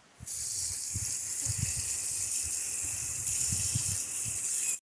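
Water running steadily from an outdoor tap over a bunch of drumsticks (moringa pods) as they are rinsed by hand, with soft low knocks as they are handled. The water starts about a quarter second in and cuts off sharply just before the end.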